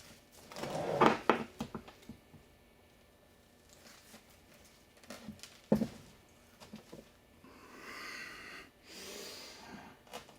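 Intermittent handling sounds: a brief rustle about a second in, a few sharp clicks and small knocks, and two short breathy hisses near the end.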